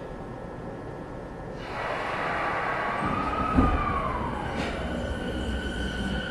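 Rinkai Line 70-000 series electric train starting off, heard from inside the car. A steady cabin hum gives way, about two seconds in, to the traction motor and inverter whine, which glides up and back down, with a single clunk partway through, then settles into steady high tones as the train gathers speed.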